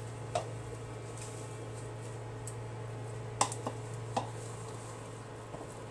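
Steady low hum from an electric stove heating a pan of oil, with a few short, light clicks, the sharpest about three and a half seconds in.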